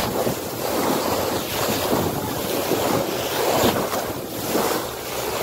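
Spray and water rushing along the hull of a motorboat under way, a loud noisy hiss that rises and falls in surges, with wind buffeting the microphone.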